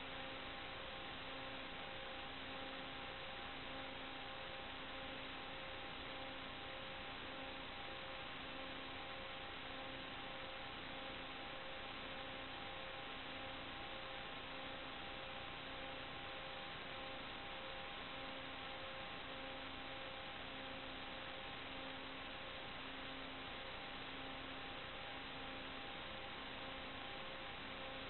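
Steady electronic hiss with a few steady hum tones and a low tone pulsing on and off a little less than once a second, unchanged as the aircraft climbs: the empty audio channel of an analog FPV video link, with no propeller or motor sound in it.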